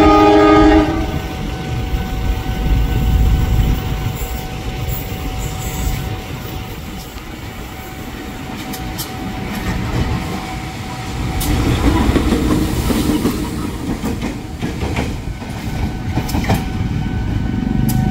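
Diesel locomotive horn sounding a chord, cutting off about a second in. Then the locomotive's engine rumbles and its wheels click over the rail joints as it runs past, loudest partway through.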